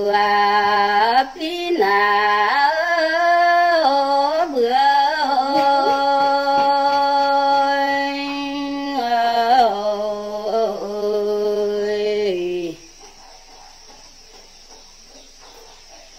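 A woman singing a Red Dao (Iu Mien) folk song solo, in long held notes that slide between pitches. The singing stops about thirteen seconds in, leaving faint background noise.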